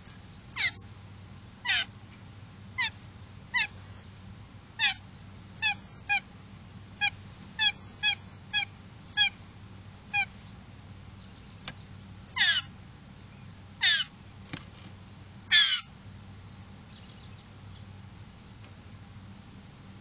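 Blue jay calling: a run of about a dozen short calls, each falling in pitch, followed by three longer, louder calls.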